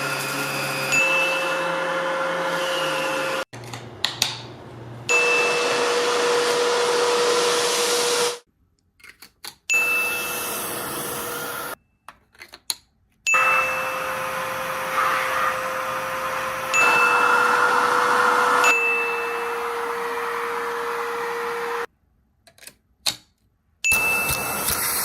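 Filter Queen Majestic vacuum cleaner's motor running with a steady whine, in about half a dozen stretches broken by short silences. A short high tone sounds at the start of most stretches.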